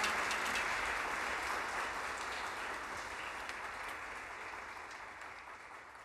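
Audience applauding, the clapping slowly fading away.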